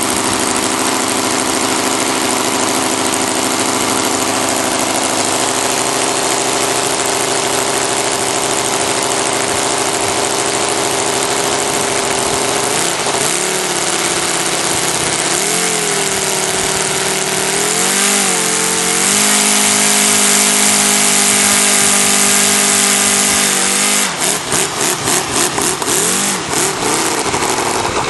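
ASP 400 five-cylinder radial model aircraft engine, converted from glow fuel to petrol, running with its propeller turning. It runs steadily, is revved up and down about halfway through, and holds a higher speed for several seconds. About four seconds from the end it drops back to a slow idle with separate, even firing beats.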